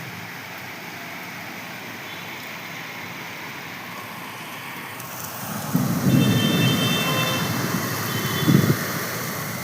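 Outdoor traffic noise: a steady background hiss, then a motor vehicle passing from a little past halfway, its low rumble rising and peaking near the end, with a few brief high tones.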